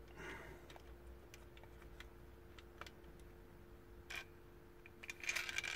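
Faint plastic clicks and taps from a GM MDI diagnostic interface's casing and circuit board being handled, over a faint steady hum. Near the end comes a louder, quick run of clicks and rattling from small parts.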